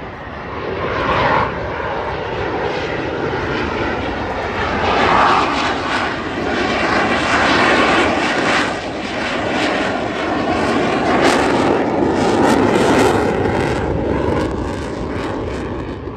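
Saab JAS 39 Gripen fighter jet flying a display pass, its single jet engine a loud, steady roar. A rasping crackle comes through at its loudest in the middle of the pass, and the roar fades near the end as the jet moves away.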